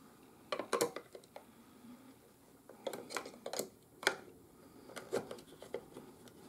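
Small hard plastic clicks and knocks as a 9-volt battery is fitted to its snap connector and pressed into the battery compartment of a handheld moisture meter, in several short clusters.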